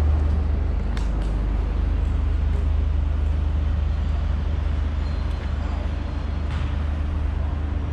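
Outdoor road-traffic ambience: a steady low rumble of vehicles, with a few faint clicks.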